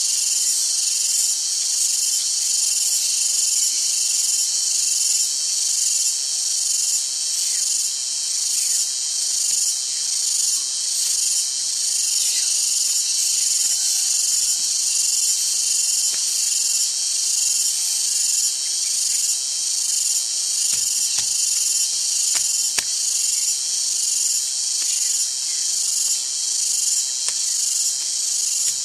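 A loud, high-pitched insect chorus buzzing steadily and pulsing at an even rhythm a little more than once a second. A single sharp click about three-quarters of the way through.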